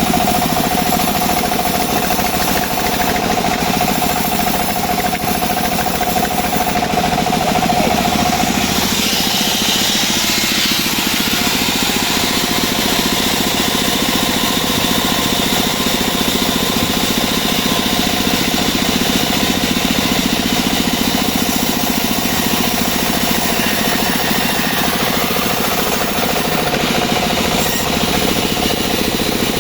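Homemade engine-driven bandsaw sawmill running steadily, sawing albasia wood. A steady whine stops about eight seconds in, and a higher hiss takes over.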